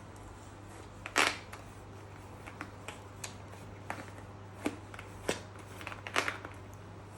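Irregular light clicks and taps of a spoon and powder-detergent box being handled at a dishwasher's detergent dispenser, the loudest about a second in and a small cluster near the end, over a steady low hum.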